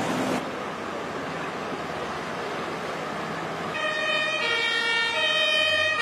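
Rushing floodwater, joined about four seconds in by a two-tone emergency-vehicle siren switching back and forth between a high and a low note.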